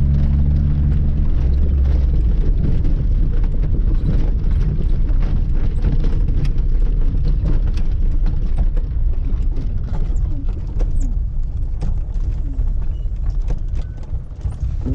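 Lada 2106 on the move from inside the car. Its four-cylinder engine holds a steady note for about the first second. It gives way to a low rumble full of rattles and knocks, and the sound fades near the end.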